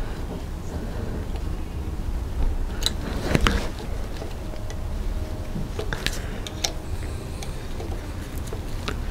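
A few sharp metallic clicks and taps of an Allen key working the blade-height adjustment in a planer thicknesser's cutterhead, with a cluster about three seconds in and more about six seconds in, over a steady low hum.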